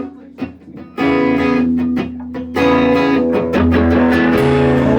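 Live band opening a song: after a brief lull, electric guitar chords are strummed about a second in, and the sound grows fuller in the low end about three and a half seconds in.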